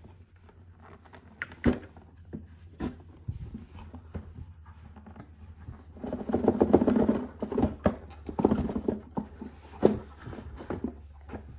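A cardboard box set being worked out of a tight cardboard slipcover by gloved hands: scattered knocks and taps, then two stretches of rubbing and scraping as the box slides and is handled.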